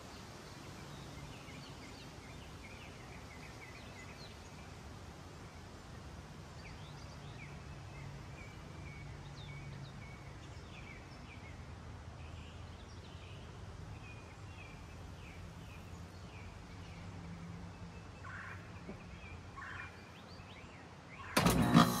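Small birds chirping now and then over a faint steady hum. About a second before the end, a 2022 3.5-ton Trane XR14 heat pump's outdoor unit kicks on with a sudden loud jolt, and its compressor settles into a steady hum as it starts up.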